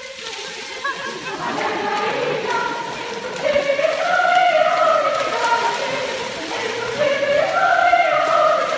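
Youth choir singing, with long held phrases that swell louder about four seconds in and again near the end.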